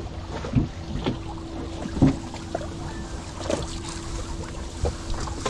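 Fishing gill net being hauled by hand out of the sea into a boat: irregular splashes and slaps of wet mesh and water every second or so, over wind on the microphone and a steady low hum.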